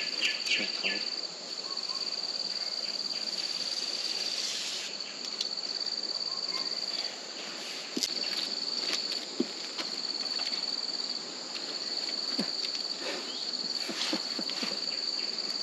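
Insects trilling in a steady high buzz that breaks off briefly once, with faint scattered clicks and rustles as long leaves are split and stripped with a knife.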